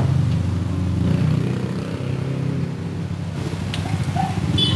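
A motor vehicle engine running steadily with a low rumble, and a single knock near the end.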